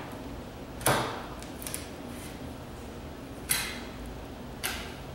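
Claw hammer striking a wooden board, three sharp blows at uneven intervals, to beat dents into it for a distressed finish.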